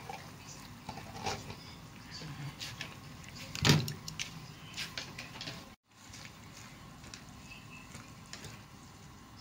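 Pot of noodles and lettuce simmering on a gas stove, a steady low hiss with scattered light clicks. One sharper knock comes a little under four seconds in, and the sound drops out for a moment shortly after.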